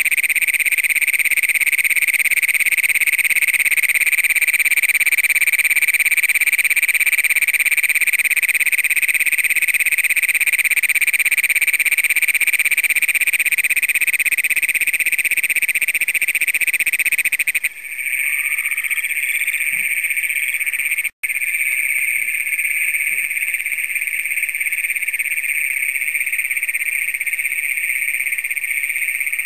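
Great Plains toads calling: a close male gives one long, unbroken, loud trill that stops a little over halfway through, while the chorus of other Great Plains toads trills on steadily behind it.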